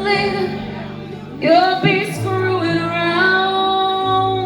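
Live rock ballad: a singer holds long vibrato notes, starting a new phrase about a second and a half in, over the band's sustained low chords.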